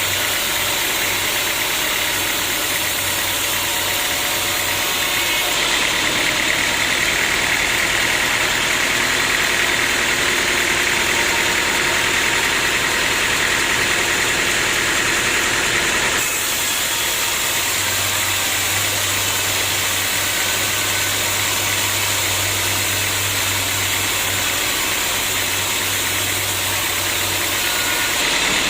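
Sawmill machinery running with a steady engine-like noise. About six seconds in it grows louder and harsher, then drops back suddenly about ten seconds later.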